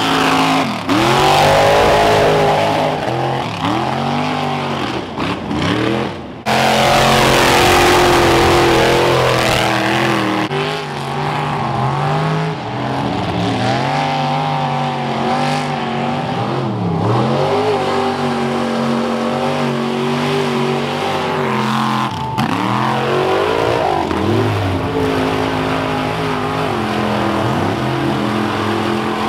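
Modified mud-bog trucks' engines revving hard as they churn through deep mud, the pitch climbing and falling again and again as the throttle is worked. The sound drops out briefly about six seconds in and comes back just as loud.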